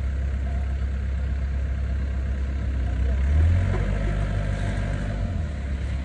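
Doosan DX55 mini excavator's diesel engine running as the arm and bucket work. Its low steady drone swells briefly a little past halfway, then settles at a slightly different pitch.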